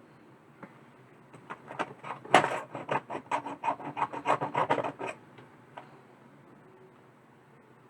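A quick run of scratchy clicks and scraping, about four to five a second for roughly three and a half seconds, as the soldering iron works solder and flux paste onto stripped headphone wire ends to tin them.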